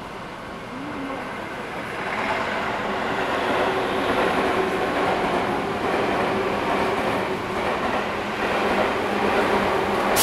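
Interior noise of a Tobu 8000 series electric train car running on the line: steady rumble and rail noise with a faint motor hum, growing louder about two seconds in. A brief loud burst of noise right at the end.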